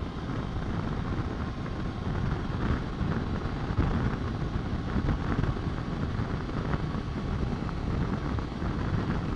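Steady wind rush and engine and road noise from a motorcycle cruising at highway speed, heard from the rider's seat with wind buffeting the microphone.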